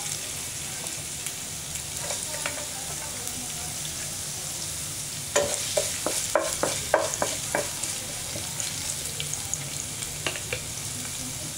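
Chopped ginger and garlic sizzling steadily in hot oil in a nonstick frying pan, with a quick run of about six stirring scrapes and taps against the pan around the middle.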